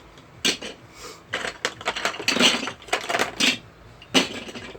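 Hard plastic Duplo bricks clattering and knocking together as they are handled, in several quick clusters of clicks and clacks.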